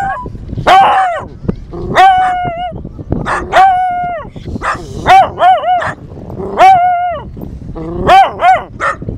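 Small dog howling: a run of about nine short, high howls with an arching pitch, coming in quick pairs and triples near the middle and end.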